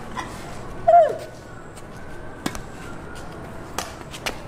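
Badminton rally: sharp pops of rackets striking a shuttlecock, three times in the second half. Before them, about a second in, a player gives a short shout that falls in pitch, the loudest sound.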